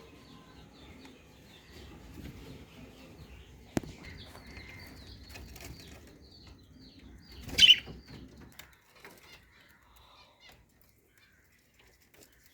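Budgerigars chirping in quick, short, high calls, with a single sharp click about four seconds in and a brief loud rustle about two-thirds of the way through; after that the chirping thins out to a few faint calls.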